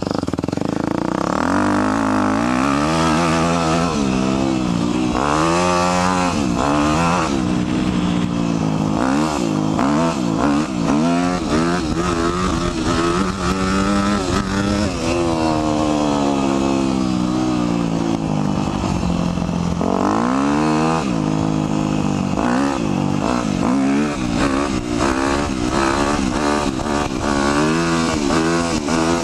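A dirt bike's engine is ridden hard over rough terrain. It revs up and eases off over and over, the pitch climbing and dropping, with quicker blips of the throttle toward the end.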